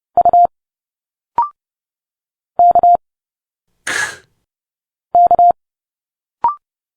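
Morse code character sent at 30 words per minute as a steady keyed tone, the same short group of dits and dahs played three times about 2.5 s apart. A brief rising beep follows the first and third groups, and about 4 s in there is a short hissing spoken sound, the speech sound the character stands for.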